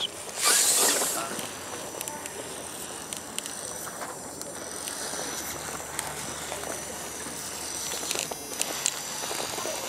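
RC rock crawler grinding slowly over rock: a faint steady whine from the motor and gears, with small clicks and scrapes from the tyres on the stone. A brief loud rush of noise comes about half a second in.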